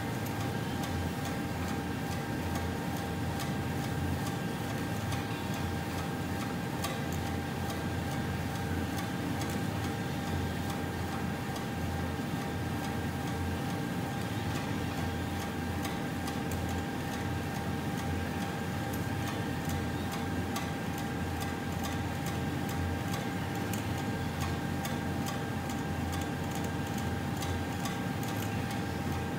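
Belt conveyor head drive running steadily: a gearmotor hum and whine, with rapid continuous ticking from the drive as the 800 mm rubber belt runs past a spring-tensioned rubber scraper. The drive's shaft coupling runs badly misaligned because of a broken coupling element.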